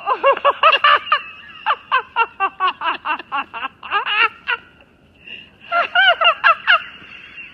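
A person laughing hard in fast, high-pitched bursts, in three fits with short breaks between them.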